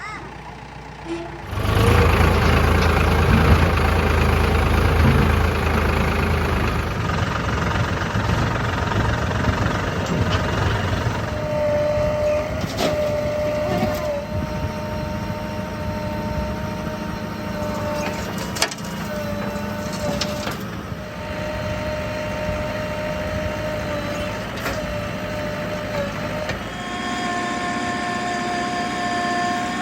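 Diesel engine of heavy earth-moving machinery running steadily, with a high steady whine joining in about a third of the way through and occasional knocks.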